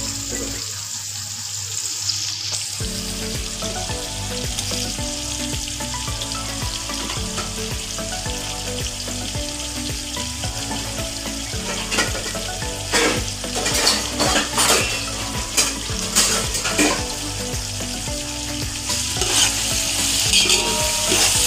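Sliced onions frying in hot oil in a stainless steel pot, a steady sizzle. From about halfway through, a spatula stirs them, with sharp scrapes against the pot over the sizzle.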